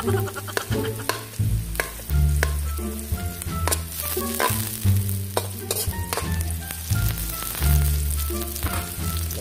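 Sliced onions and ginger sizzling in hot oil in a wok as they brown, with a metal spatula scraping and clicking against the pan as they are stirred.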